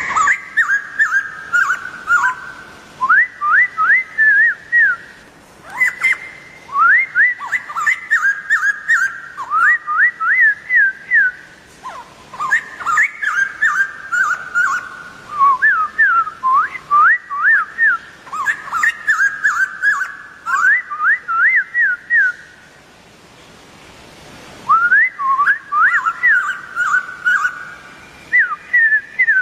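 White-crested laughingthrush singing: loud, repeated phrases of quick rising whistled notes, several to a phrase, with a short lull about three-quarters through.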